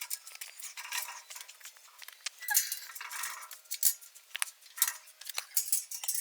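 Irregular light metallic clinks and clicks, like metal parts and tools being handled.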